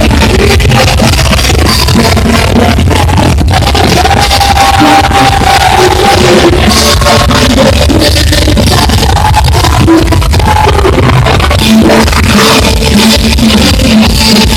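Live rock band playing loud and distorted, with sung lines over electric guitars and drums.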